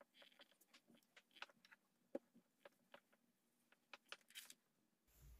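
Near silence, with faint scattered ticks and rustles of quilting cotton fabric pieces being handled; a faint low hum starts just before the end.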